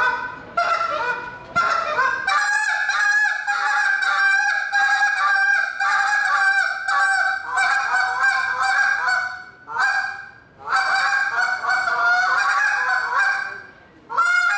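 Hand-held goose call blown in a contest routine. It opens with a few single honks, then fast runs of honks and clucks that break between a low and a high note, with two short pauses and one last honk near the end.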